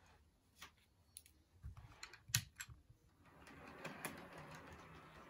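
HO scale model diesel locomotive rolling along the track: a scatter of light clicks, the loudest about two and a half seconds in, then a faint steady whir of the running model from about three seconds in.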